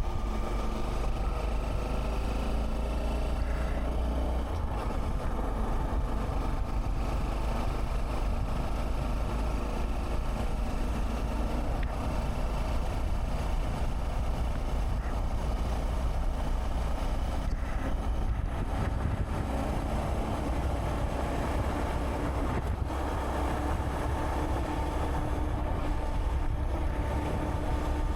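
Honda Monkey 125's single-cylinder four-stroke engine running under way, its pitch shifting a few times with speed, over wind buffeting the action camera's microphone.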